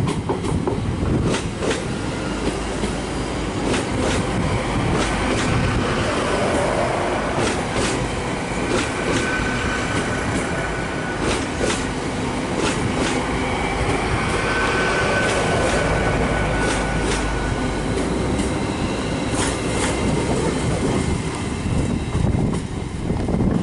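Great Western Railway Hitachi bi-mode Intercity Express Train running on its diesel engines as it pulls out and passes close by, its wheels clicking over rail joints. A thin wheel squeal sounds twice near the middle.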